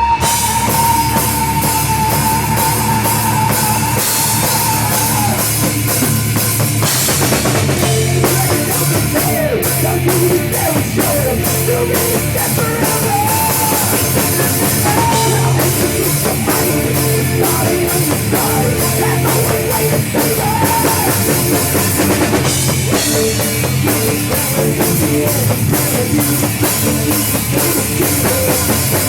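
Rock music with a heavy drum kit and electric guitar. A lead line holds one long note for about the first five seconds, then plays short bending phrases over a steady driving beat.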